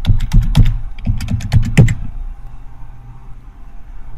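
Computer keyboard keys being typed in quick succession, stopping about two seconds in, after which only a low steady hum remains.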